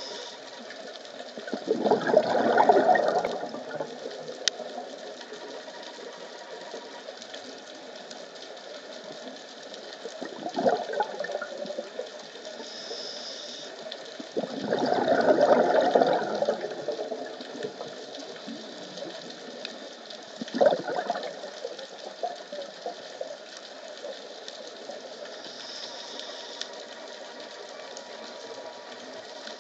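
A scuba diver breathing through a regulator, heard underwater: two long bursts of exhaled bubbles, a couple of seconds in and about halfway through, with shorter bubble sounds between, over a steady mechanical hum.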